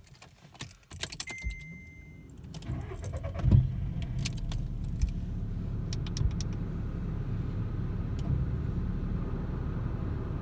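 Car keys jangling and a short electronic beep, then a car engine starting about three and a half seconds in and settling into a steady idle.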